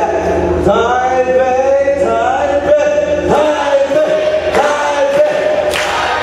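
A man's voice holding long, drawn-out sung notes. Near the end, regular sharp beats start up.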